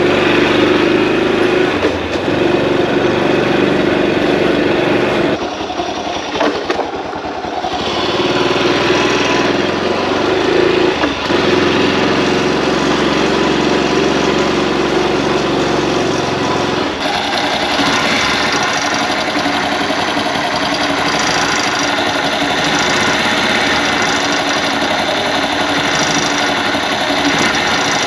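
Honda Cub's single-cylinder four-stroke engine running at idle with an abnormal noise from underneath the bike. The noise is worst when the engine has just been restarted after a few minutes' stop and settles once the bike has been ridden. The sound drops briefly about six seconds in and turns sharper from about seventeen seconds on.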